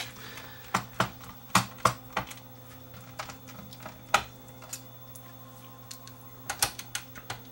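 A screwdriver clicking against screws in the sheet-metal chassis of a cassette deck as the screws holding the tape mechanisms are backed out: scattered light clicks, then a quick run of clicks near the end.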